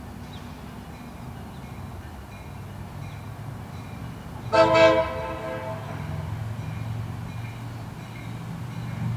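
Approaching diesel passenger locomotive sounding one short horn blast about four and a half seconds in, over the low rumble of its engine, which grows a little louder afterwards.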